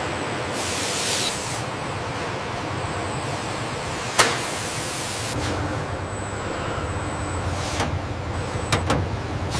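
Steady machine noise with short hisses like air being released, and a sharp click about four seconds in, then two more clicks near the end.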